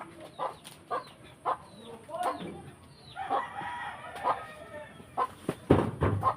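Chickens clucking in a series of short calls, with a longer rooster crow about three seconds in.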